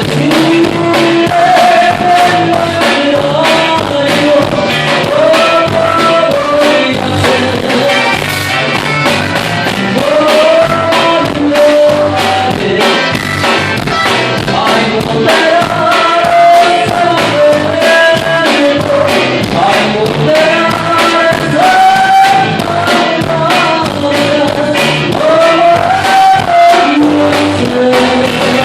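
A band song with a lead singer over a steady beat.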